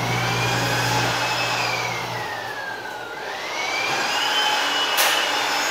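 Winterhalter PT-M warewasher running: a motor whine that falls in pitch and then rises again, over a low hum that cuts out about two seconds in. A single sharp click comes near the end.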